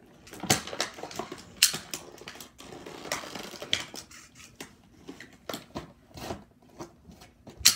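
Stiff clear plastic blister packaging being crinkled and cut open: irregular crackles, snips and clicks, with one sharp loud snap near the end.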